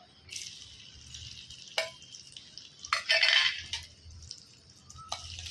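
Chopped onions sizzling in hot oil in a kadai, with a few sharp metal clinks and a louder stretch of sizzling about three seconds in.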